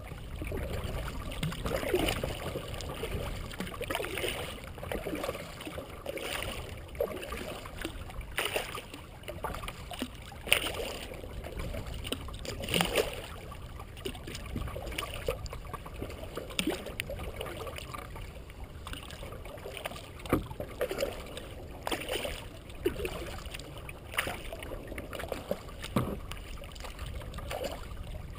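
Kayak paddle strokes through calm water, a splash and drip about every two seconds over a steady low rumble.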